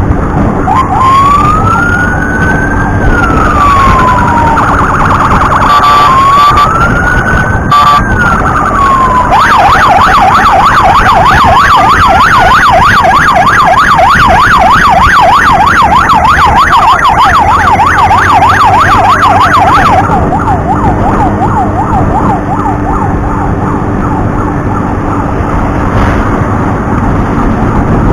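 Emergency siren, very loud: two slow rising-and-falling wails, then a fast warbling yelp that cuts off about 20 seconds in. Vehicle engine and road noise carry on underneath and after it.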